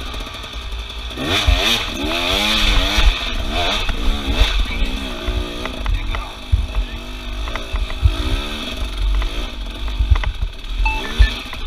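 Off-road vehicle engine revving up and down repeatedly, with heavy low thumps and knocks.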